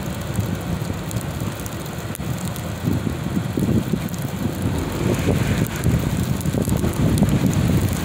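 Wind buffeting the microphone: an uneven low rumble that grows a little stronger about three seconds in.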